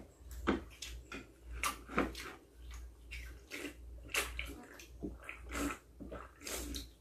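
Mouth sounds of eating and drinking: irregular wet smacks, chews and gulps, a few each second, as sips are taken from a small drink can.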